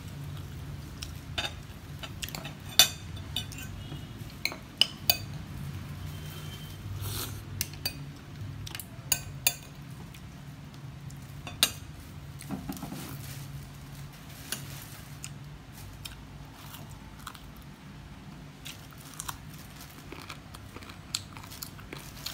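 A metal spoon clinking sharply against a soup bowl again and again, most often in the first twelve seconds, with chewing between the clinks as pork rib and green papaya soup is eaten. A low steady hum runs underneath.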